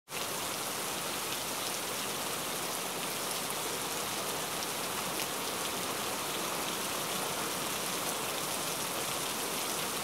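Steady rain falling, an even hiss of drops that holds at one level throughout.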